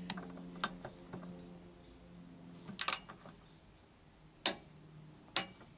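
Sharp metallic clicks from a torque wrench tightening the swinging-arm linkage bolts of a Yamaha XJ900S Diversion to 48 Nm. There are a few single clicks, a quick double click about three seconds in, and the loudest click about four and a half seconds in, over a low steady hum that fades out halfway through.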